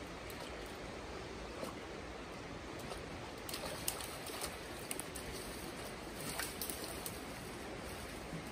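Steady rush of a river flowing past, with a few light clicks and knocks partway through.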